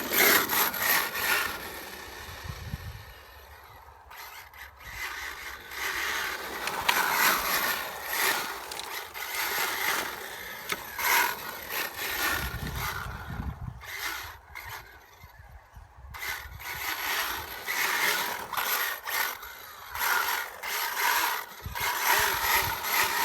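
Brushless electric motor and gear drive of an HPI WR8 Flux 1/8-scale rally car on a 3S battery whining as it repeatedly speeds up and slows down, the sound swelling and fading as the car drives away and back.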